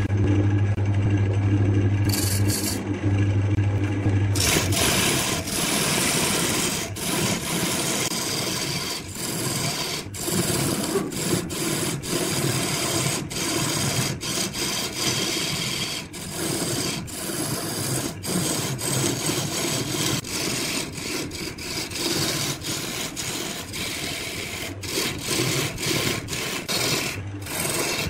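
Wood lathe motor running with a steady hum, then from about four seconds in a turning tool cutting into the spinning wooden blank: a continuous scraping, shaving noise with many brief breaks.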